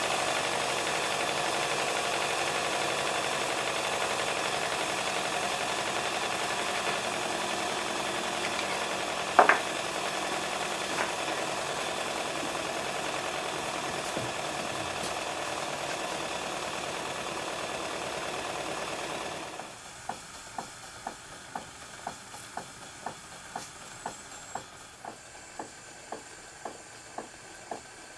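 Stuart 7A model steam plant running on steam: a steady hiss and mechanical clatter from the engine, with one sharp click about nine seconds in. Near the end of the first two-thirds the sound changes to a quieter model mill engine running slowly, a regular tick about one and a half times a second.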